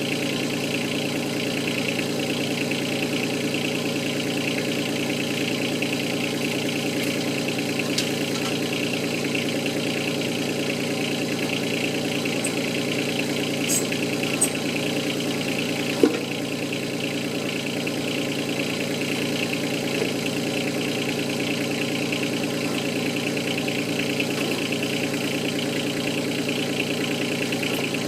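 Yanmar 2450 compact tractor's diesel engine running steadily at idle. A few short sharp knocks break in, the loudest about 16 seconds in.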